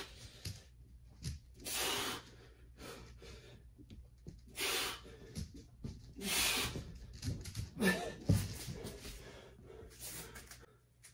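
A man's heavy, forceful breathing while he strains through a push-up balanced on a medicine ball and a stability ball: a loud rush of breath every couple of seconds, with a soft thump about eight seconds in.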